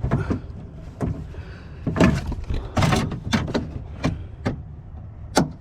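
Irregular knocks, clicks and rattles of hands working inside a pickup's door shell, fitting the door lock actuator's linkage rods and their clips; the sharpest knocks come around two to three seconds in.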